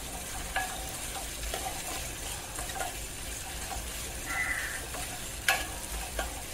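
A metal spoon stirring and scraping a thick tomato masala in a metal kadhai, over a faint sizzle. There are light scrapes and soft clicks throughout, and a sharp click about five and a half seconds in.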